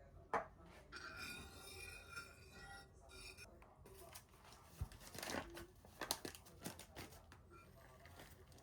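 Light handling noises: a sharp click about half a second in, a few seconds of rustling and crinkling, then several quick taps and knocks.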